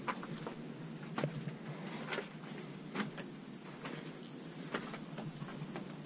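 Footsteps on the dirt and rock floor of a limestone cave: a handful of sharp, separate steps about a second apart over a steady background hiss.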